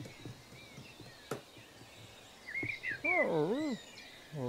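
Chewbacca's Wookiee vocalisation: a warbling moan whose pitch dips and rises twice, then a shorter, steadier call near the end. Forest birdsong chirps and a few faint clicks sound under it.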